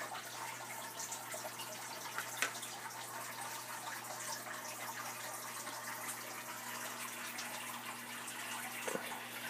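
Aquarium water trickling and splashing steadily, as from a filter's outflow into the tank, with a steady low hum underneath and a few brief louder splashes.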